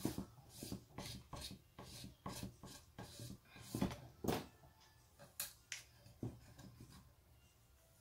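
Pink Cricut plastic scraper rubbed in short quick strokes over removable vinyl hexagons on a glitter-coated tumbler, burnishing them down: a run of brief rasping scrapes that thin out after about four seconds.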